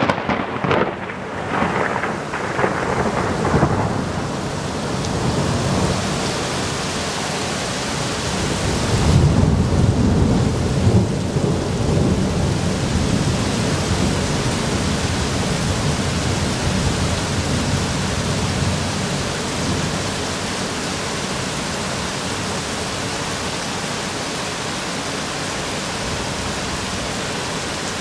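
Thunder from a very close lightning strike: a run of sharp cracks in the first few seconds, then a deep rumble that swells about nine seconds in and dies away by around twenty seconds. Heavy rain hisses steadily throughout.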